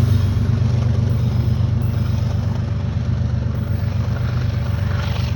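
Steady low engine and road rumble of a car, with no train sound left above it.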